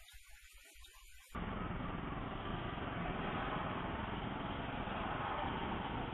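Faint background for about the first second, then a sudden cut to steady car-interior road and traffic noise heard through a dashcam, an even rumble and hiss with no distinct events.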